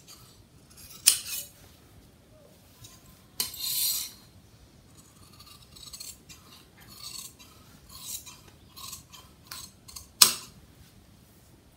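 Large tailoring scissors cutting along a chalk line through blouse fabric: a run of snips, with a few louder, sharper snaps about a second in and near the end.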